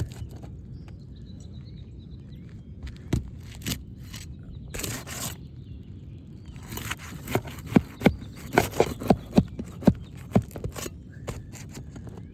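Tool scraping and knocking on an asphalt roof shingle while flush roofing nails are worked out: a scrape about five seconds in, then a quick run of about eight sharp knocks.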